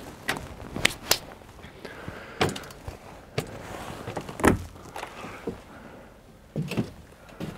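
Knocks and metal clanks from an aluminium folding stair being unfolded and stepped on, then the cabin's entry door being unlatched and swung open. They come about once a second; the loudest knock comes about four and a half seconds in.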